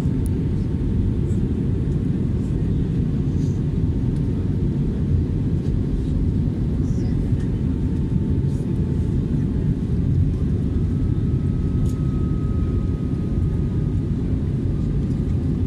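Steady low roar of engine and airflow noise inside a jet airliner's cabin during the descent to land, with a faint steady whine coming in about ten seconds in.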